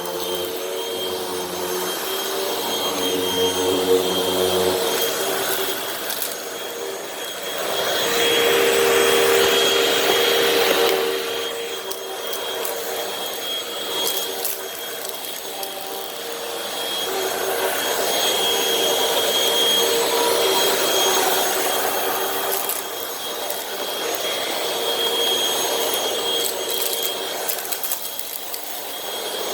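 Hoover WindTunnel High Capacity Pet upright vacuum running, its motor a steady whine under a rush of air that swells and eases as it picks up dirt and debris.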